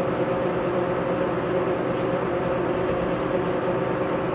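Leblond Makino Regal 19" x 150" engine lathe running with its lead screw engaged for thread cutting: a steady mechanical hum carrying several constant tones.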